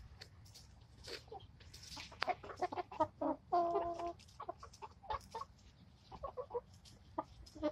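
Chickens clucking in short calls, with one longer drawn-out call about three and a half seconds in, mixed with sharp ticks of beaks pecking at cabbage.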